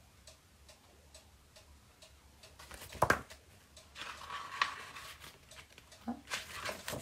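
A cuckoo clock ticking faintly and steadily, about twice a second. About three seconds in comes a sharp knock, followed by rustling, crinkling handling noise.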